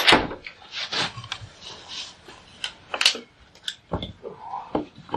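Irregular sharp clicks and knocks, about ten of them spread unevenly, with faint brief rustling between them in a pause of a recorded interview.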